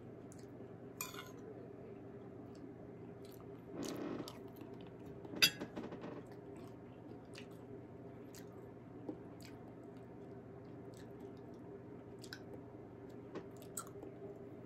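A person chewing food with small wet mouth clicks, plus a sharp clink about five and a half seconds in that is the loudest sound.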